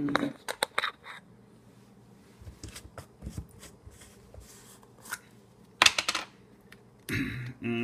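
Clicks and knocks of jars and lids being handled on a kitchen counter, then a cluster of sharper clicks about six seconds in as the screw lid of a peanut butter jar is twisted open.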